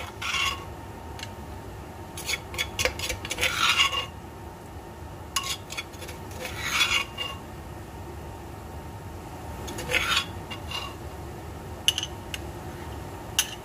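A kitchen utensil scraping and stirring against cookware in several irregular strokes, with a few short clinks near the end.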